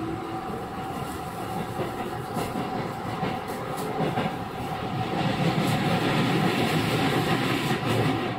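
A Chiba New Town Railway 9100-series WN-drive motor car running, heard from inside, with a steady whine over the running rumble and faint rail-joint clicks. The rumble grows louder about five seconds in.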